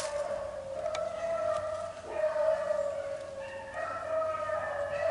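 A pack of beagles baying in a continuous, overlapping chorus as they run a rabbit's trail.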